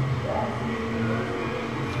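A steady low motor hum, with one short higher-pitched sound about half a second in.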